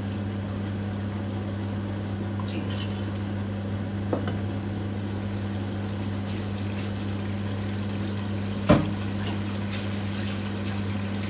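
Curry sauce simmering and bubbling in a pot on a gas hob, over a steady low hum. A single sharp knock comes about three-quarters of the way through.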